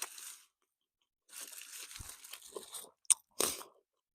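Close-up chewing of a juicy, not very crispy fried chicken sandwich, in irregular bursts: a short one at the start, a longer stretch of chewing in the middle, then a sharp click and a last burst near the end.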